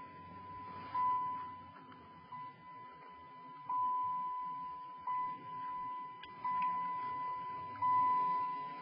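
Dashboard warning chime of a 1991 Dodge Caravan dinging over and over, six evenly spaced single-tone dings, each ringing on until the next.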